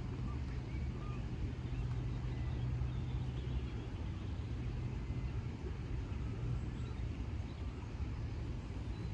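Steady low rumble of distant road traffic, with a few faint, short, high chirps over it.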